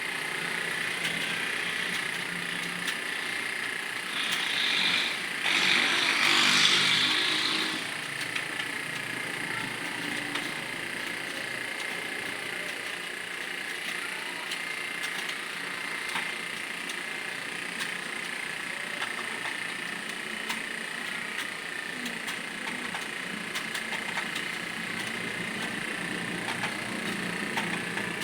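Rapid, uneven clicking of computer keyboard keys being typed during a home-row typing drill, over a steady background hum. A louder rushing noise swells up about four seconds in and fades by about eight seconds.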